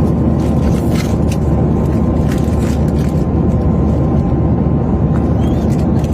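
Loud, steady low rumbling noise with a faint steady high tone and a few light clicks, like a vehicle in motion.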